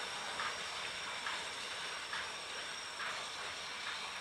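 Steam locomotive No. 1309, a Baldwin-built 2-6-6-2 Mallet, hissing steam as it approaches slowly, with a soft puff a little more than once a second.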